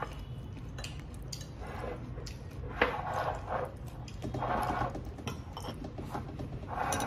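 A person eating: soft chewing and mouth sounds over a low steady hum, with one sharp click, as of a fork on a dish, a little under three seconds in.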